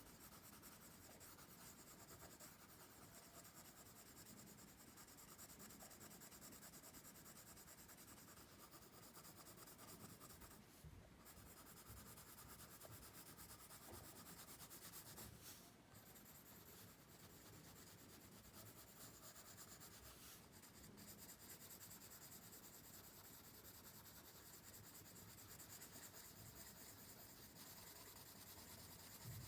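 Faint pencil strokes scratching and rubbing on sketchbook paper as graphite is shaded in, with a few brief pauses where the pencil lifts.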